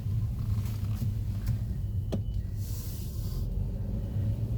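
Road noise inside a moving car's cabin: a steady low rumble, with a few light clicks and a brief hiss about three seconds in.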